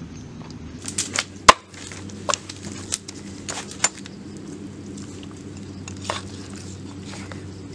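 Large kitchen knife chopping raw beef on a wooden chopping board: irregular sharp knocks, about eight in the first four seconds with the loudest about a second and a half in, then one more near six seconds.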